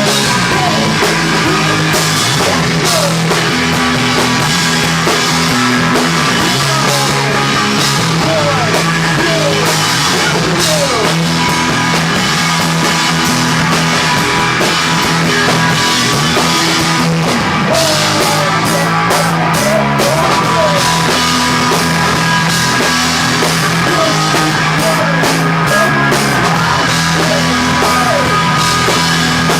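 A rock band playing live, loud and without a break: distorted electric guitars holding chords over bass and a pounding drum kit.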